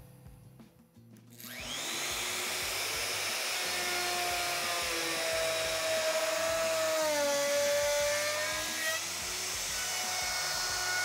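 Festool OF 1400 plunge router starting up about a second and a half in, then running steadily as its 12 mm downcut spiral bit routes a dado in plywood, with the rush of the connected dust extractor underneath.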